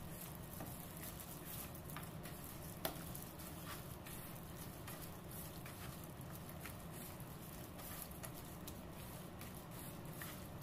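Raw chicken pieces squelching in a thick yogurt-and-chili marinade as a gloved hand kneads and turns them in a plastic bowl: a faint, irregular run of small wet clicks and squishes, with one sharper click about three seconds in.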